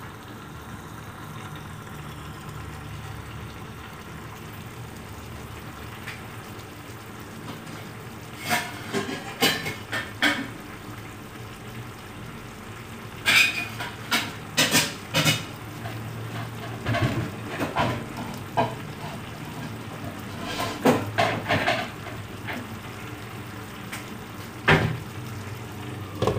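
Steady sizzling of a pan of pumpkin and chicken cooking on a gas stove. From about eight seconds in there are repeated bursts of clinking and knocking cookware, and near the end a glass lid is set on the pan.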